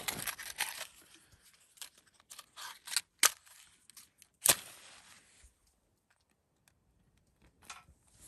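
A matchbox handled with small rattles and clicks, then a wooden match struck on its side, with a few short scrapes and the loudest, sharpest strike about four and a half seconds in.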